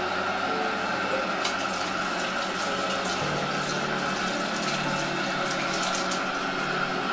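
Bathroom tap running into a sink: a steady rush of water, with a few brief sharper sounds over it in the middle.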